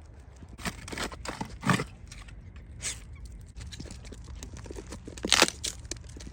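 Scattered crunches, steps on frozen ground, with a few sharper crunches about two seconds in and again near the end.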